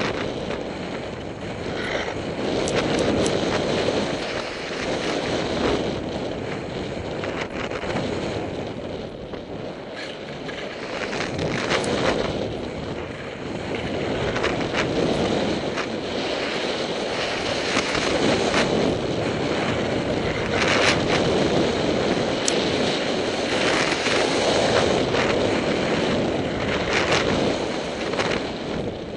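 Wind rushing over the helmet camera's microphone, with the scraping hiss of edges sliding on packed snow. It swells and eases every few seconds as the rider crosses from wall to wall of the halfpipe, with scattered clicks and knocks.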